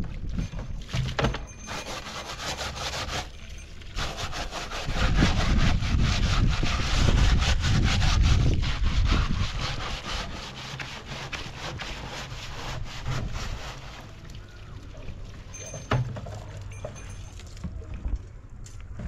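Rapid scraping strokes, like work on wood, loudest from about five to ten seconds in and quieter afterwards, with a single sharp click near the end.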